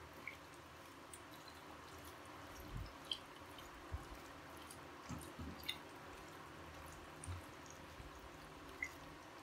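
Faint wet squishing of raw chicken pieces being worked by hand into a spice and cornflour marinade in a glass dish, with a few soft knocks scattered through.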